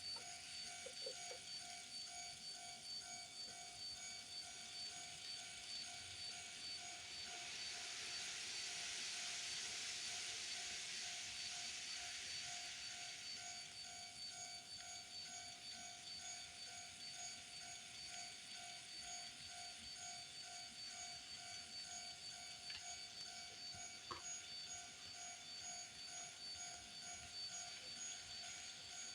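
Model-railway level-crossing warning bell ringing steadily, about two to three rings a second. An N-scale model train runs past, its running noise swelling for several seconds about a third of the way in.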